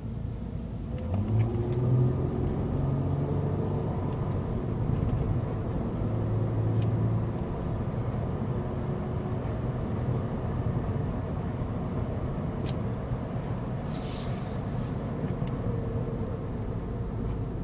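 Inside the cabin of a 2008 Acura TL Type-S: its 3.5-litre V6 pulling at light throttle and low revs, a low steady engine hum over road rumble, picking up slightly about a second in.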